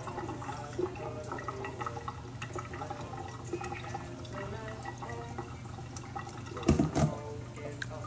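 Kitchen tap running into a sink, with water splashing. About seven seconds in, a short cluster of knocks, like dishes or a cup being knocked about.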